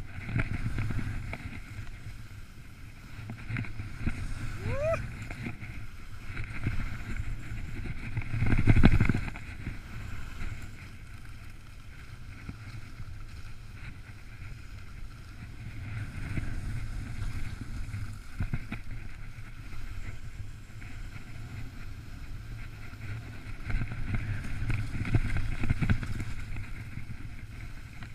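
Wind buffeting an action camera's microphone during a downhill ski run, with skis hissing and scraping over the snow, rising and falling in surges and loudest about nine seconds in.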